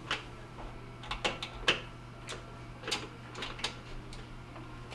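Scattered light clicks and ticks, about nine, unevenly spaced, from a 1/4-inch ground screw being backed out with a driver and handled on the stove's metal back panel, over a steady low hum.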